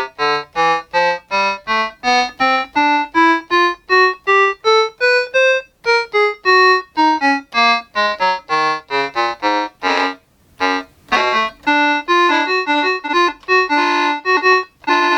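Yamaha PortaSound PSS-30 mini keyboard playing single notes at about four a second, stepping up the keyboard for about six seconds and then back down, then a looser group of notes ending in a longer held sound. All the keys are sounding now that the keyboard's contaminated key contacts have been cleaned.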